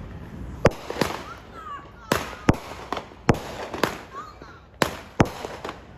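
Consumer fireworks going off: a quick, irregular string of about ten sharp bangs, roughly two a second.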